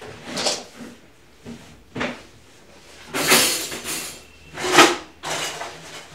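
Someone rummaging about in a kitchen: five short bursts of scraping and knocking as things are moved and handled, the loudest a little before five seconds in.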